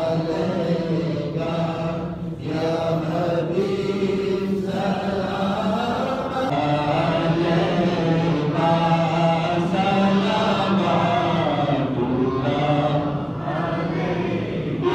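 A man's voice chanting Quran recitation for the congregational prayer, in long held melodic phrases with brief pauses between them.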